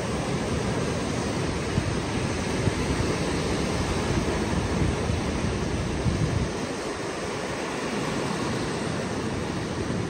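Ocean surf breaking and washing up the beach in a steady rush, with wind buffeting the microphone; the low rumble eases a little about two-thirds of the way through.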